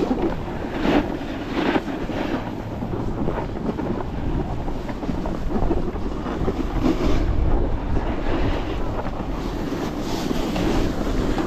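Wind buffeting the microphone while moving downhill, with the hiss and scrape of a snowboard sliding over packed snow, a few stronger scrapes standing out.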